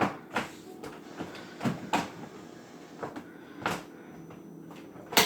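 Plastic clicks and knocks of a Bissell CrossWave's brush-roll cover and roller being handled and fitted back onto the cleaner head: about eight sharp clacks at irregular intervals, the loudest snap near the end.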